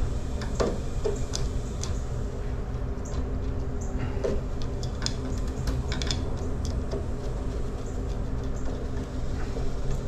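Small, scattered clicks and taps of a screwdriver working at a circuit breaker's wire terminal screws in an electrical panel, over a steady low electrical hum.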